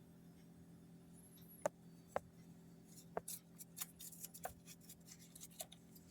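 Faint scattered clicks and taps: two sharper ones about two seconds in, then a quicker run of small clicks, over a low steady hum.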